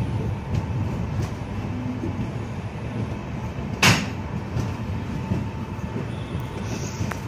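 Indian Railways passenger train running at speed, heard from a coach window: a steady low rumble of wheels on track, with one sharp loud crack about four seconds in.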